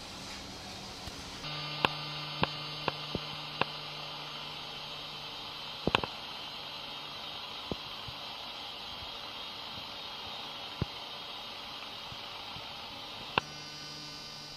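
Steady indoor hum with hiss and a low, even tone, starting after a cut about a second and a half in, with a handful of scattered sharp clicks and taps, the loudest about six seconds in.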